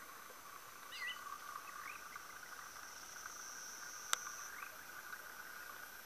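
Faint dusk chorus of caatinga night insects and frogs: a steady high buzzing and a lower trilling, with a few short rising chirps about one and two seconds in. A single sharp click comes just after four seconds.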